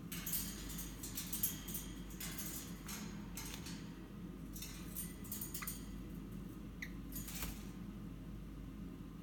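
Eastern rosella clambering down the wire cage bars, its claws and beak scratching and clicking against the metal wire in quick clusters, with two short faint squeaks near the middle.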